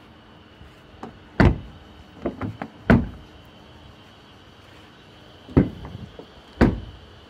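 Car door on a Chevrolet Aveo being shut and opened repeatedly: four solid, dull thuds with lighter latch clicks between them. The door edge carries newly fitted rubber sealing strip, meant to make it close solidly and quietly.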